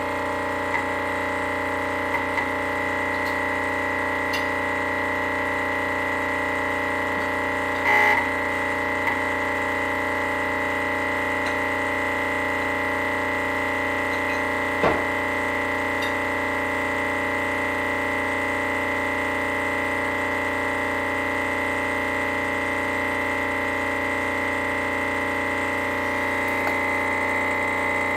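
Rocket Premium Plus espresso machine giving off a steady buzzing hum made of several tones, the highest a whine near the top. Two brief clicks break it, about eight and fifteen seconds in. It is the noise the owner is drawing attention to.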